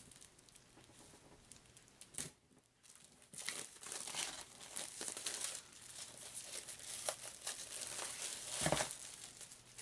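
Packaging crinkling and rustling as board-game token sheets are handled and unpacked, getting busier about three seconds in, with a single soft knock near the end.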